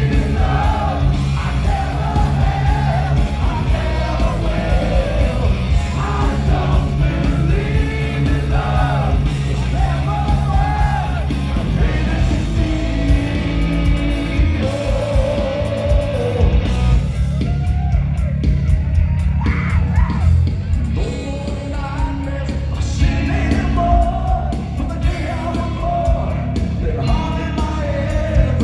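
Live hard rock band, with electric guitars, bass guitar and drums, playing loudly under a male lead singer.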